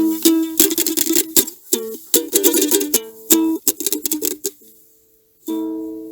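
Strummed acoustic string instrument playing quick chords, then a gap and a final chord struck about five and a half seconds in that rings out and fades.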